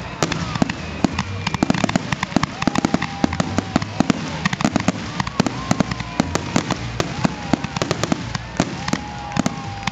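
Fireworks display: a rapid, unbroken stream of bangs and crackles from aerial shells bursting overhead.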